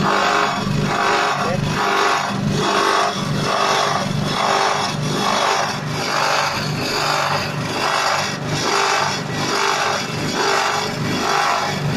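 Corn grinding machine driven by a 6.5 hp petrol engine, running loudly as dried corn kernels are fed into its hopper, with a steady hum under a sound that swells and fades about twice a second.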